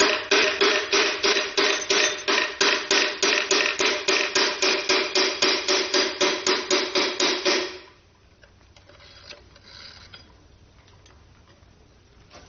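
Hammer striking metal in a fast, even rhythm, about four blows a second, each with a ringing tone. It stops suddenly after about eight seconds, leaving only a few faint clicks.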